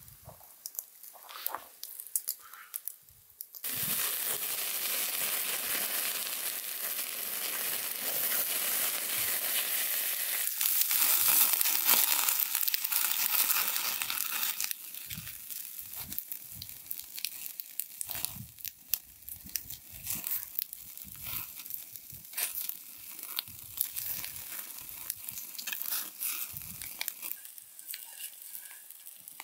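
Lamb steaks on metal skewers sizzling over a wood and charcoal fire, with the fire crackling and popping. A loud, steady sizzling hiss starts about four seconds in and lasts about ten seconds, then gives way to quieter scattered crackles and pops.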